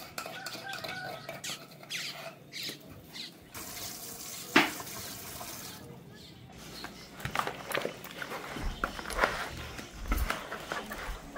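Cooking pots and utensils clinking and knocking, with a stretch of running or pouring liquid for a couple of seconds in the middle and one sharp knock, the loudest sound, partway through it.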